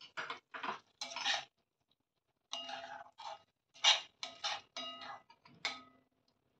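Metal spatula scraping and knocking against a stainless-steel kadai as a thick curry is stirred: a string of short strokes, each leaving the pan ringing briefly, with a pause of about a second between the first few and the rest.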